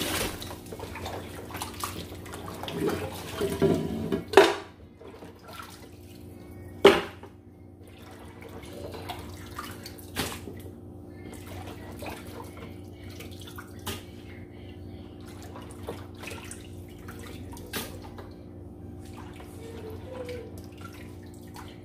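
Goat meat being rinsed by hand in a basin of water and moved into a steel pot in the sink: splashing and dripping water with small scattered clicks, and two sharp knocks about four and seven seconds in. A steady low hum runs underneath.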